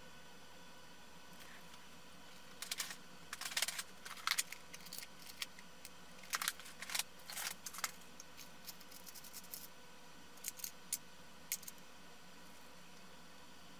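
Irregular clusters of sharp small clicks and brief scratchy rustles from small tools and electronic parts being handled on a workbench. They start about two and a half seconds in and stop a couple of seconds before the end.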